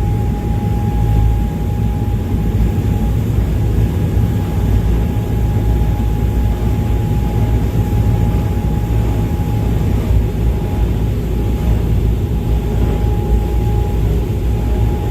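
OceanJet fast ferry underway at cruising speed: its engines run steadily, a deep rumble with a thin constant whine above it.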